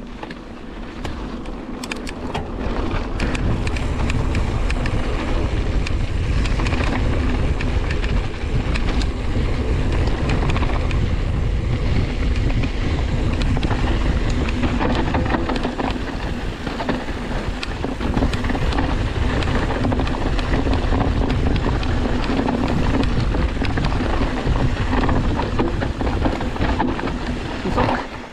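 Wind buffeting a rider's camera microphone on a fast mountain-bike trail run, mixed with the clatter and rattle of the bike over rough dirt. It builds about three seconds in, eases briefly midway and drops off right at the end.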